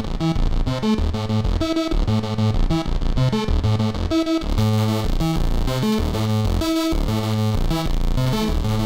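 A riff from a software subtractive synthesizer: short pitched notes over a repeating bass line. About halfway through, the sound gets denser and brighter, with a hiss added.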